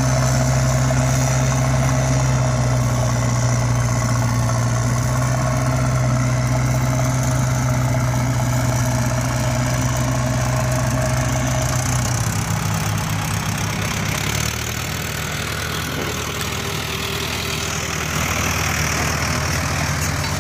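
Steady engine-like idling rumble of a heavy vehicle, changing to a different, slightly lower and rougher note about twelve seconds in.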